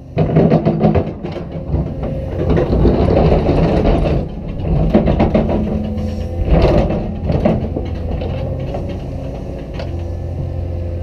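Cat 320DL excavator digging: the bucket scrapes and crunches through rocky dirt in two loud spells over the first seven seconds or so, over the steady run of its diesel engine and hydraulics, which carry on alone after that.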